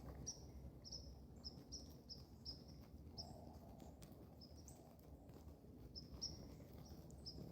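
Quiet outdoor ambience: a small unseen animal chirping in short high notes, roughly two a second, some stepping up in pitch, over a faint low steady rumble.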